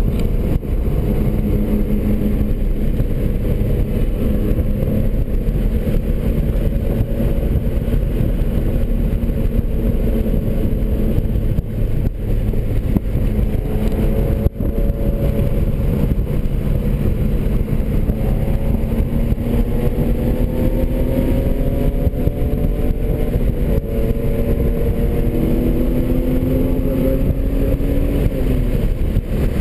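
Inside the cabin of a 2003 BMW 330i at speed on a race track. The 3.0-litre straight-six engine runs under load over a dense low rumble, its pitch climbing slowly through the second half and dropping near the end.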